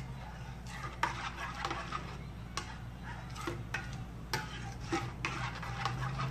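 A metal spoon stirring a thick, hot tapioca-starch slime mixture in a stainless steel bowl, with irregular clinks and scrapes of the spoon against the bowl's sides.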